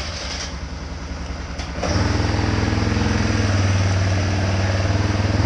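A 1990 four-wheeler's engine running just after starting, with steady engine firing. About two seconds in it picks up and grows louder, then holds steady.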